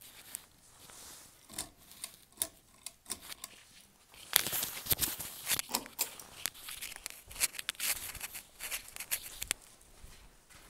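Footsteps scuffing and crunching on a gritty concrete floor strewn with debris, with irregular clicks and rustles, busier from about four seconds in.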